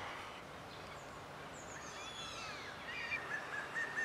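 Birds singing faintly against a quiet outdoor background, with a few falling whistled notes about halfway through and a run of short chirps near the end.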